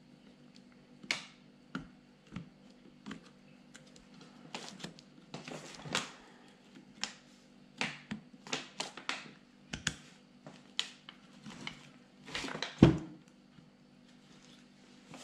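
Irregular light clicks and knocks of a Peugeot-Citroën HDi starter motor's parts being handled and fitted together by hand: the plastic brush holder plate against the metal housing, with one louder knock near the end.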